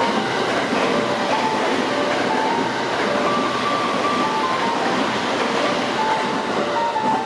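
Limited express electric train passing through a station at speed: a steady rush of wheel and rail noise, with piano music over it.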